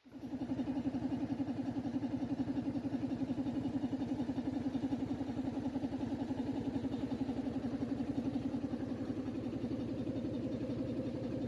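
A small engine running steadily, with a fast even pulse.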